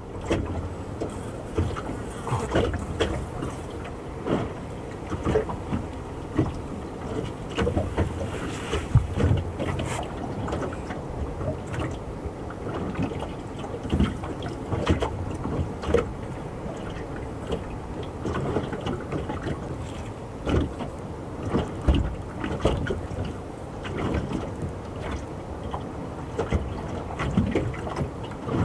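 Small waves lapping and slapping against the hull of a small moored fishing boat, with irregular knocks every second or so over a steady wash of water and wind.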